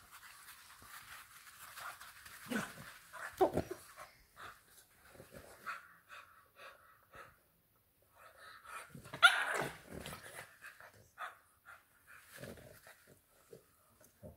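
Two English bulldog puppies tussling over an antler chew, making irregular breathing and snuffling noises with short bursts of sound. The loudest burst comes about nine seconds in.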